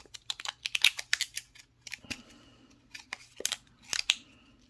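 Crisp crinkling and clicking of a clear plastic coin flip as fingers pry a coin out of it, in two clusters of quick clicks: one about half a second in and another near the end.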